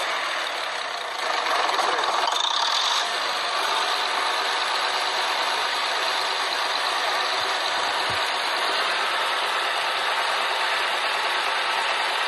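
Machinery running steadily with a continuous mechanical noise, the kind an engine or gearbox makes under way.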